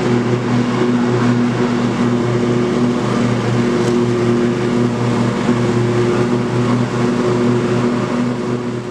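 An engine running steadily at a constant speed, with a dense hiss over it.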